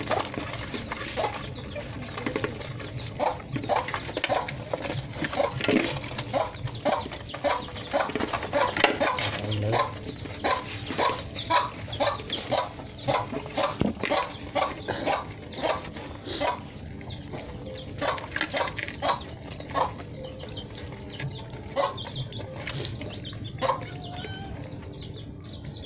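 Puppies eating rice from a shared tub: rapid chewing, smacking and lapping, with short clucking calls several times a second.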